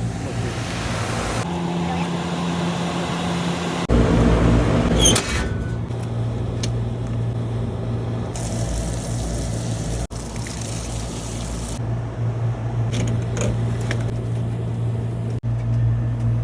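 Trane package air-conditioning unit running with a steady low electrical hum and airflow noise, as the replaced blower motor and wheel run. The sound changes abruptly a few times, as between spliced clips.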